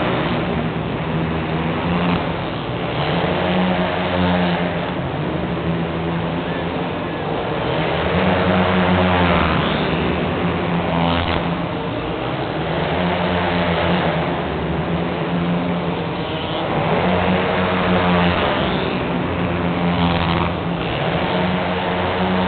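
Quad ATV engines revving up and falling back again and again as the quads accelerate and brake around an ice track, the pitch rising and falling every few seconds over a steady low drone.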